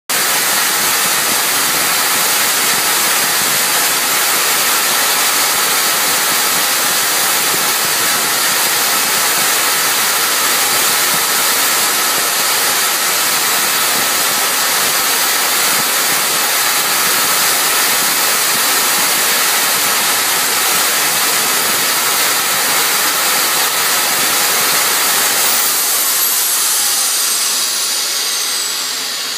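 Homemade jet engine test rig running steadily, a loud rushing of air through the compressor intake with a faint high whine. Near the end the level begins to drop and a high whine glides down in pitch as the engine starts to spool down.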